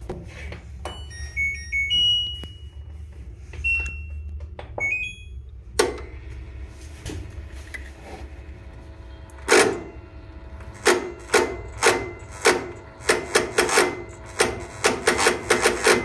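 Washing machine control panel beeping several times, with one longer tone, as the spin cycle is selected, over a low steady hum. From about ten seconds in, a fast, quickening run of clicks and knocks as the LG top-loader's drain motor works its rusted drain-valve linkage; the motor is not pulling fully at the end of its stroke, a sign that it has gone weak.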